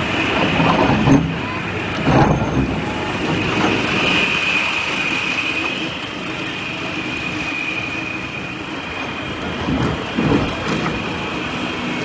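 Tracked hydraulic excavator working: the engine runs steadily under a constant high whine, with a few knocks and scrapes of the bucket in soil and stones, about one, two and ten seconds in.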